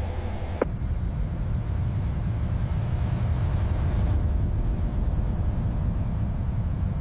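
Jet engines of a large aircraft running, a deep steady rumble, with one short click about half a second in.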